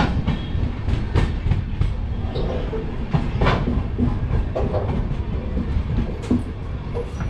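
Passenger train running on the rails: a steady low rumble with irregular clacks and knocks from the wheels.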